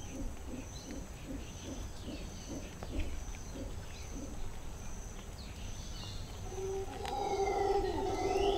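Tropical rainforest ambience: insects buzzing steadily at a high pitch, with a run of low, pulsed animal calls about twice a second in the first few seconds. About seven seconds in, a bird starts calling louder with a low, held note and a few higher, sliding notes above it.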